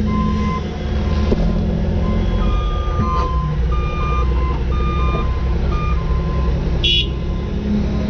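John Deere 210G excavator's diesel engine running steadily under a dump truck's backup alarm, which beeps on and off at two alternating pitches as the truck reverses into place. A brief sharp hiss comes about seven seconds in.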